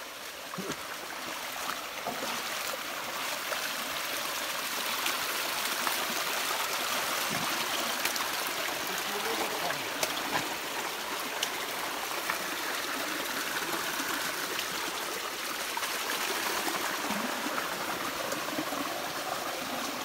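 Shallow, muddy stream running over stones and earth: a steady rush and trickle of water.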